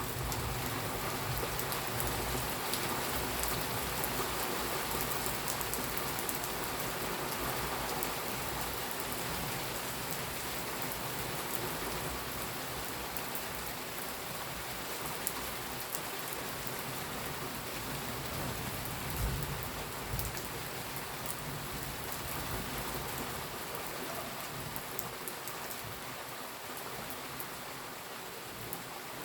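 Steady rain falling and pattering on a surface, thick with fine drop ticks, easing slightly in level toward the end, with a few soft thumps in the middle.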